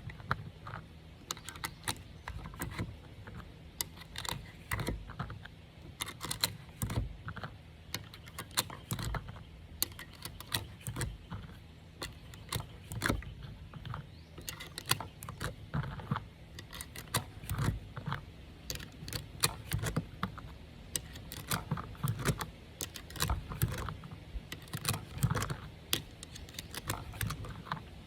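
Irregular small metallic clicks and rattles, a few a second, of 9mm cartridges being handled and pushed one after another into a Glock 19 magazine.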